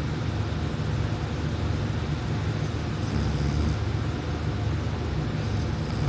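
A person snoring, a continuous low rumble. A faint high whistle rides on it about three seconds in and again near the end.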